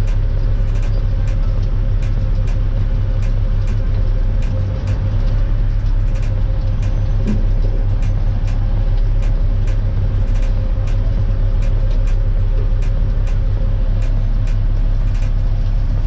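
Heavy dump truck's diesel engine idling, heard from inside the cab: a steady low rumble with a steady drone above it and faint ticks two or three times a second.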